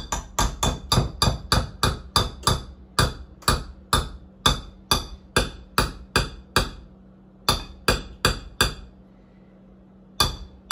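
Metal hand-mixer beater tapped repeatedly against the bowl and plate to knock cake batter off it: sharp knocks, about three a second, with short pauses between runs.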